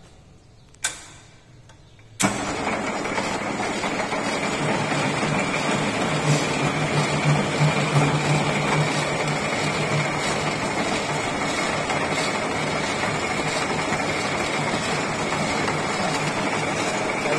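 A single knock, then about two seconds in an old engine lathe's motor and headstock gearing start up suddenly and run steadily, spinning the chuck: a continuous whirring with a high whine over a low hum.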